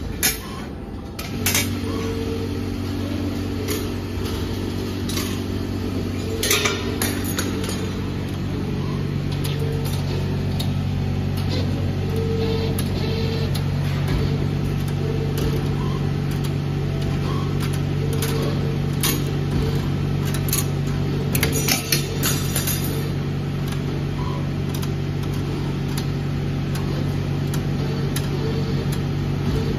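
A CNC wire bending machine running with a steady low motor hum, a second, higher hum tone joining about eight seconds in. Short metallic clicks and knocks come now and then, the sharpest near the start and around twenty-two seconds.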